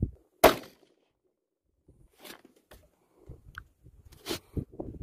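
Sharp, short cracks from a 6mm ARC rifle at the shooting bench, the loudest about half a second in and another near the end, with quieter clicks and knocks between.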